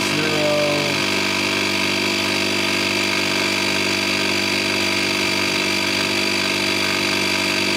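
Audew 12-volt portable tire inflator's electric compressor running steadily at an even pitch, pumping air into a car tire on its way to the 38 PSI set point.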